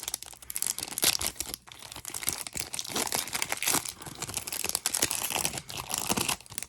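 Haunted Hoops basketball card pack wrapper being torn open and crinkled by hand: a dense run of crackling and rustling that stops just as the next cards come out.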